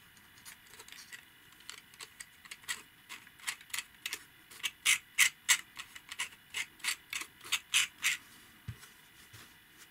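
Sharp plastic clicks from a 3D-printed model air engine's moving parts as it is worked by hand, an even series of about three ticks a second, loudest in the middle and stopping shortly before the end.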